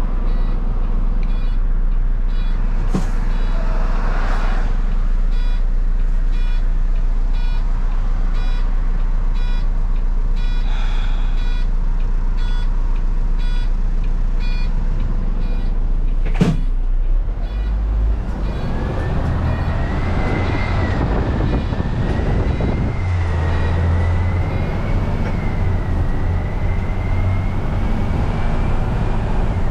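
Volvo six-cylinder turbo diesel of a bin lorry idling in the cab, with a steady tick of the indicator about every three-quarters of a second. A sharp click comes about 16 seconds in. Then the engine pulls away under load with a slowly rising whine as the lorry gathers speed.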